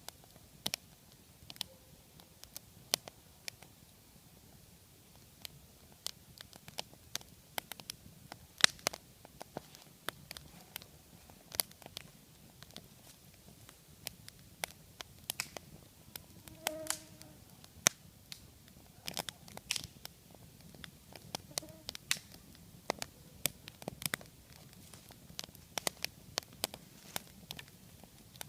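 Wood fire in a log-cabin ('well') campfire stack crackling, with irregular sharp pops and snaps.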